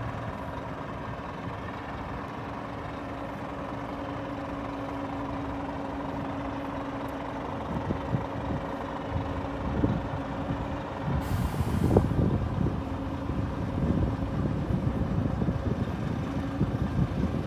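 Parked Scania P400 refrigerated truck giving off a steady mechanical hum with a few constant tones. About eleven seconds in comes a brief hiss of released compressed air, and wind buffets the microphone in the second half.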